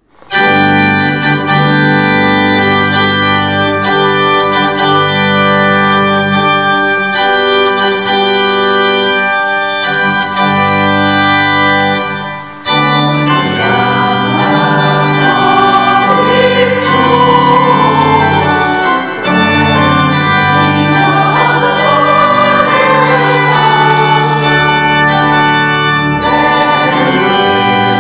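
Organ music playing held chords. About halfway through, a singing voice comes in with a hymn-like melody over the organ.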